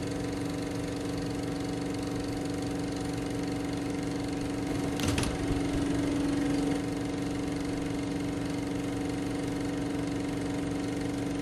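Film projector running: a steady mechanical whirr over a constant hum, with a brief sharp sound about five seconds in and the run a little louder for the next two seconds.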